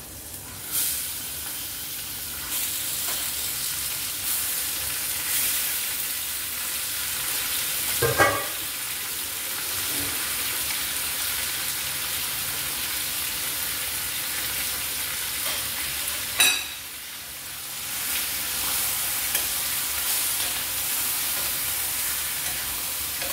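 Chicken pieces sizzling as they sear in hot oil with sautéed onion and garlic, the first step of chicken adobo, while a spatula stirs them. The sizzle rises about a second in as the chicken goes into the pot, with two louder clatters about eight and sixteen seconds in.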